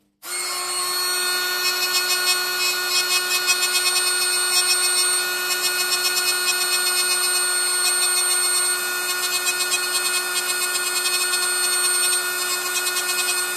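Small handheld pencil grinder with a fine burr running at a steady high speed, grinding metal out of a groove in an air bearing pad to take down a high spot before lapping. A steady high whine with a rough grinding hiss over it, starting just after the beginning.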